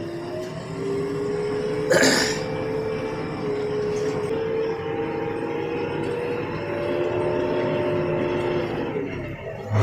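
A new JCB 3DX backhoe loader's brakes making a loud, slightly wavering whine in a few pitches over its running engine while the machine is braked on the move. The noise comes whenever the brakes are applied, which the owner takes for a fault in the new machine. There is a single sharp click about two seconds in.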